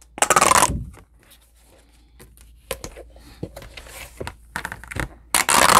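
An interchangeable Erin Condren notebook cover being pulled off its metal spiral coil: two loud rustling scrapes, one just after the start and one near the end, with light clicks and rustles of the cover against the coil between.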